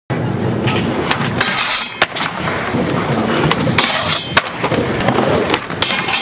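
Skateboard wheels rolling on concrete, broken by repeated sharp clacks of the board, as the trucks grind along a steel rail.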